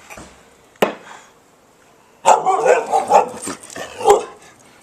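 A dog barking in a quick string of short barks for about two seconds, answering its owner, after a single sharp click near the start.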